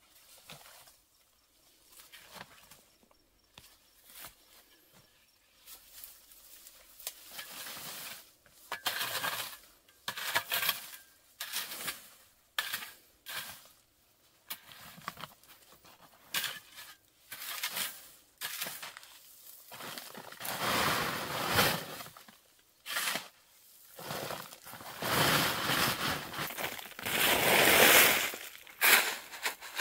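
A hand digging tool scraping and crunching into gritty ground in irregular strokes. The longest and loudest strokes come in the last third.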